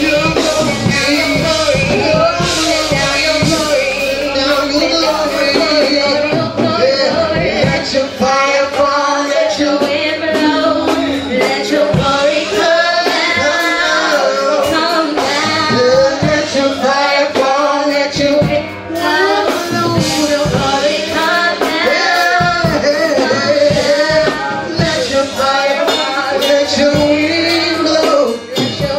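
Church praise-and-worship singing by mixed voices with instrumental accompaniment and percussion strikes.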